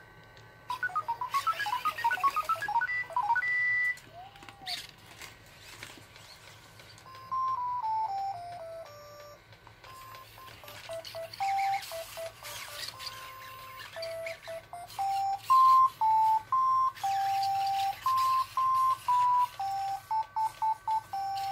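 Sony AIBO ERS-11x robot dog playing a simple tune of single electronic beep notes in its song-and-dance routine. It opens with a quick run of rising and falling beeps, goes down a short scale, then plays a melody of held notes, with bursts of whirring from its leg motors as it moves.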